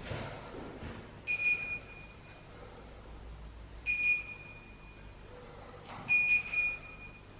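Three short electronic ringing tones about two and a half seconds apart, each a high-pitched ring that fades out over about half a second to a second. The first and last are broken into quick double or triple pulses.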